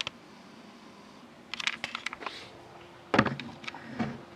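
Hands handling a sealed cardboard trading card box: a scatter of light clicks and taps about a second and a half in, then a knock about three seconds in and another near the end as it is moved and set down.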